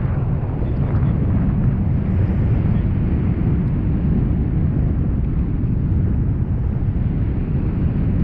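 Steady wind rush buffeting the camera microphone, heavy and low, from the airflow of a tandem paraglider in flight.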